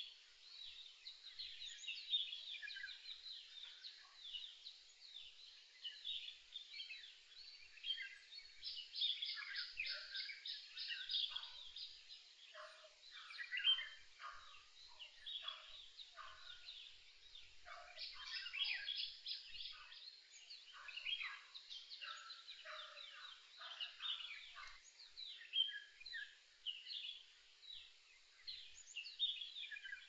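A dense chorus of birds calling, many short chirps and chattering notes overlapping, with busier flurries of rapid calls about nine and eighteen seconds in.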